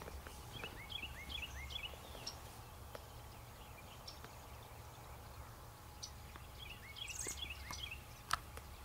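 A bird calling in two short runs of quick repeated chirps, one about a second in and one near the end, over a low rumble, with a sharp click near the end.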